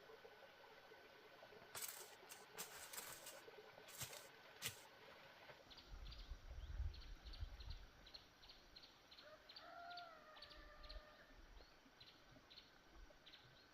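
Faint bird chirps repeating about three times a second, with one longer drawn-out call about ten seconds in. A few sharp clicks come before the chirping starts.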